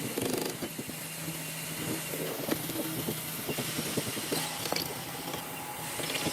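Factory machinery running with a steady low hum, overlaid by irregular clicks and clanks.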